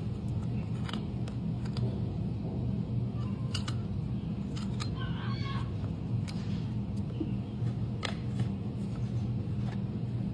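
Hoof trimming on a horse's hoof: scattered sharp snips and clicks from the farrier's tools, over a steady low hum.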